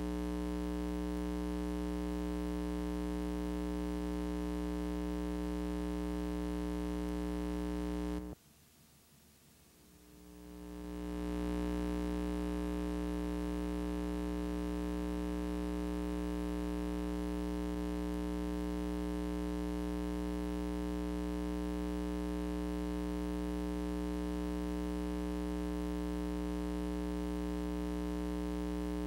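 Steady electrical mains hum with a stack of evenly spaced overtones, the only sound present. About eight seconds in it cuts out suddenly for about two seconds, then fades back up over a second or so.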